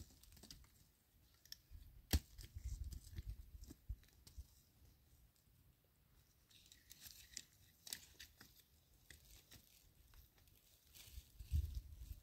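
Dry firewood sticks being handled and laid down: sparse sharp clicks and knocks of wood on wood, with rustling of dry leaves and grass between them.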